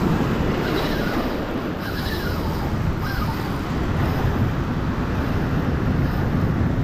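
Surf breaking and washing over rocks and cobbles, a steady rushing noise with a low rumble, with wind on the microphone.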